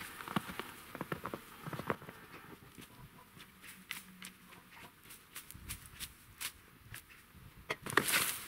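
Footsteps crunching in snow, irregular and growing fainter as the walker moves away. About eight seconds in come several louder crunching strokes of a shovel in snow and dry brush.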